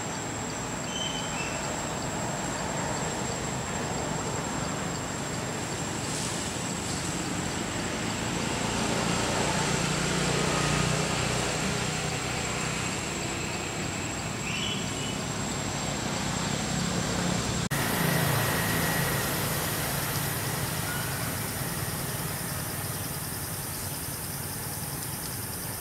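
Steady low outdoor background rumble that swells a little around the middle, with a thin high whine that cuts off suddenly about two thirds of the way through.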